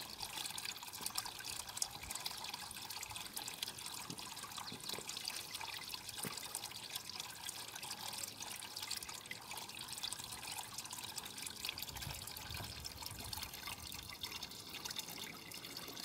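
A thin stream of water trickling from a small pipe into a basin already full of water, a steady light splashing with fine drips.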